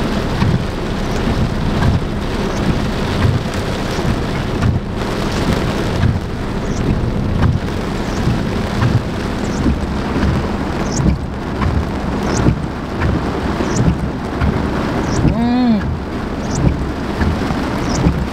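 Heavy rain from a summer thunderstorm pelting a car's roof and windshield, a dense steady hiss with irregular low drumming.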